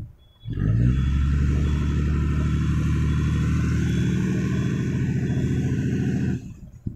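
Heavy diesel engine revving hard close by, held at high revs with a hiss over it. It starts abruptly about half a second in and cuts off about a second before the end.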